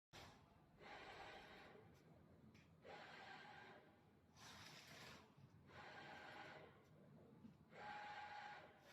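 Panel bender working through its bending strokes: faint, repeated surges of hissing whir with a light whine, about one every one and a half to two seconds.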